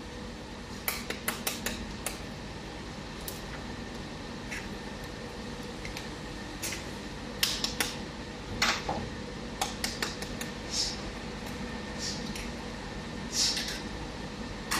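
Sharp clinks and taps of eggs being cracked on the rim of a china bowl, in scattered clusters of a few strikes each, over a faint steady hum.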